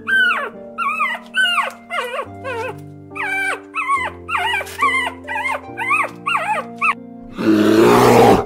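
A quick run of short, high cries, each rising and then falling in pitch, about two a second, over background music with held notes. Near the end comes a single loud, harsh, noisy call lasting about a second.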